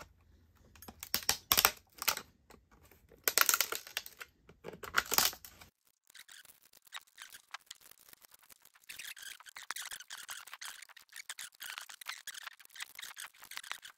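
Hard plastic 3D-printed parts being handled, scraping and crackling in several loud bursts over the first half, then lighter scattered clicks and rustling.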